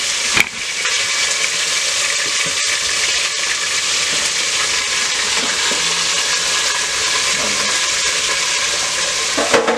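Breasted dove meat frying in hot oil in a deep pot, sizzling and spattering hard with a steady hiss. There is a single knock about half a second in.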